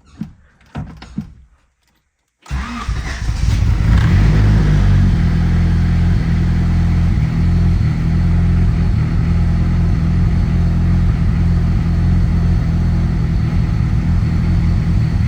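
Turbocharged Honda Civic engine running cold, warming up at idle; it comes in suddenly about two and a half seconds in, after a few faint clicks, and runs steadily to the end.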